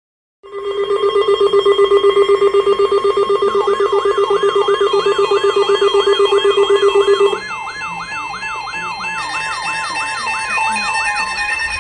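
Several electronic alert tones sounding together, starting suddenly about half a second in: a fast-pulsing low tone, steady higher tones, and from about three and a half seconds a rapid siren-like warble. The low pulsing tone stops about seven seconds in. These are emergency alert alarms ahead of a National Weather Service tornado watch message.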